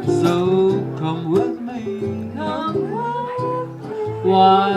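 A Hawaiian band playing an instrumental introduction on guitars: plucked chords and bass notes under a lead melody that slides between notes and wavers on a held note near the end.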